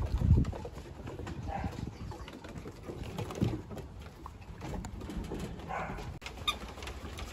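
Shepsky (German Shepherd–Husky mix) puppies' paws pattering and scrabbling on wooden deck boards, with scattered knocks, a heavy thump just after the start, and a few brief high squeaks.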